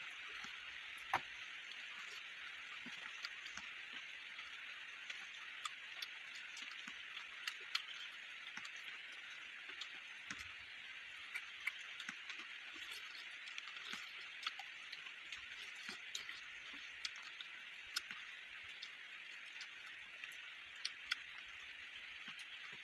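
Corn on the cob being eaten: small scattered clicks and crunches, about one a second, as kernels are picked off and chewed, over a steady high hiss.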